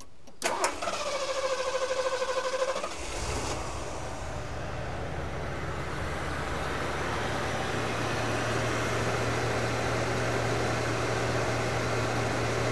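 Ford 460 V8 with a four-barrel carburettor in a 1974 Mercury Colony Park cranking on the starter in a pulsing rhythm for about two and a half seconds, catching about three seconds in, then settling into a steady idle that the owner calls super smooth.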